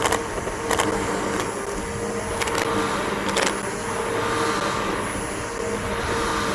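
Bissell BigGreen PowerForce upright vacuum cleaner running steadily on a lawn, its motor giving a constant whine over a rushing hiss, with a few sharp clicks about one, three and four seconds in.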